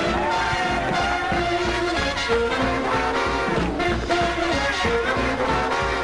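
Big-band swing music with brass horns playing over a steady beat.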